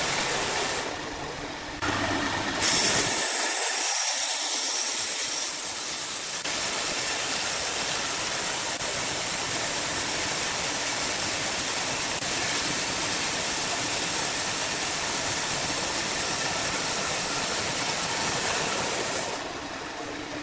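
Sawmill machinery running: a loud, steady, hissing noise with no clear rhythm or tone. It changes abruptly a few times in the first three seconds and drops away near the end.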